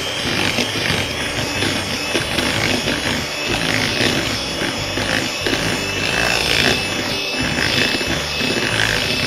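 Electric hand mixer running steadily, its beaters creaming margarine, butter, powdered sugar and egg yolk in a bowl for a cookie dough. Beaten only briefly, just until everything is combined.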